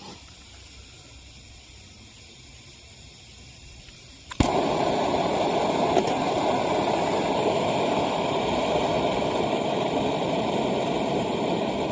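Optimus Nova pressurized stove being relit after it was shut off: a few seconds of quiet, then a sharp pop as it lights about four seconds in, and the burner runs with a steady, loud rushing hiss.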